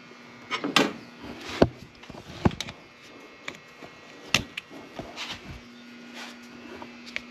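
Irregular knocks and clicks, as of hand tools and metal parts being handled, over a faint steady hum. The loudest knocks come about one and a half and two and a half seconds in.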